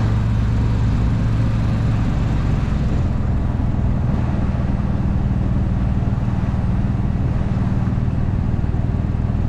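Golf cart driving along at a steady speed, a continuous low drone.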